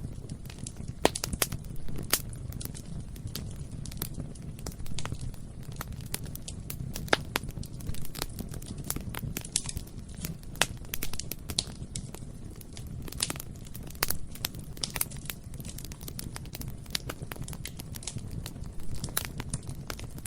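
Bonfire burning: a steady low rumble of flame with constant irregular crackling and sharp pops of burning wood.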